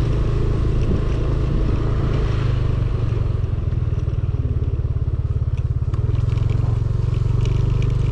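Small motorcycle's engine running at low speed over a rough, rutted dirt road. The pulsing note eases off for a while in the middle, then picks up. Light clicks and rattles from the bike come in the last couple of seconds.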